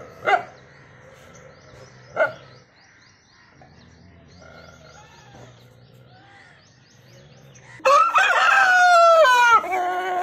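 A white rooster crows once near the end, a loud drawn-out call of about two and a half seconds that falls in pitch. Earlier a dog barks twice, short and sharp.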